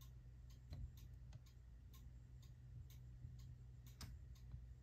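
Schneider cuckoo clock's pendulum movement ticking faintly and steadily, about two ticks a second, over a low steady hum.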